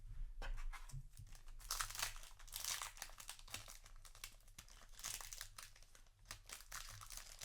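Foil trading-card booster pack wrapper crinkling and tearing as the pack is handled and opened, a dense run of quick crackles.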